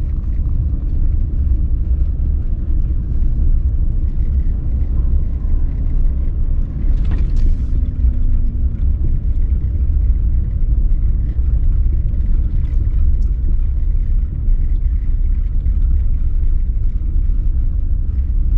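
Steady low rumble of a truck being driven, engine and road noise with no change in pace.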